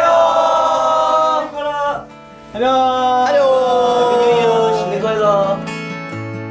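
Several young men's voices calling out together in two long drawn-out cheers, the second sliding down in pitch, over light acoustic guitar background music that carries on alone near the end.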